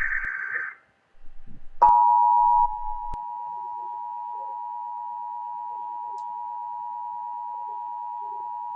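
Emergency Alert System tones: a harsh burst of warbling data tones cuts off within the first second. After a short gap the two-tone EAS attention signal starts, loud for about a second, then drops to a softer level and holds steady to the end.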